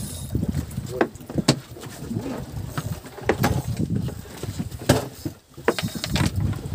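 Irregular sharp knocks and clatters on a small fishing boat, several of them a second or so apart, over a low rumbling background.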